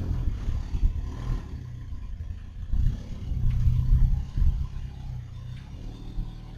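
Car running, with a fluctuating low drivetrain rumble and a few faint knocks and rattles, recorded to trace an abnormal noise from the rear limited-slip differential.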